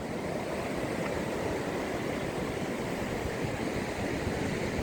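Sea surf rushing onto the beach, a steady even noise with wind on the microphone.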